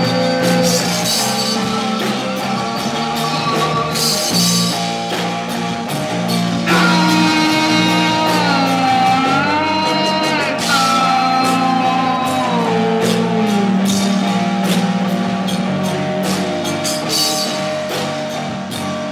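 Rock song played by a band on guitars and drum kit, with a steady beat. About seven seconds in, a lead line enters that bends and slides in pitch for several seconds.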